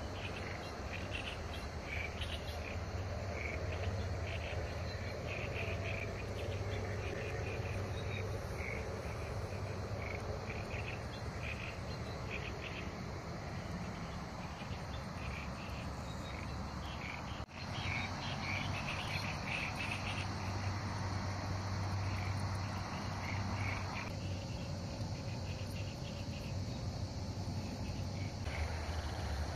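Crickets and other insects chirping steadily, a high trill with many short repeated calls on top, over a low steady rumble; the sound breaks off for an instant a little past halfway.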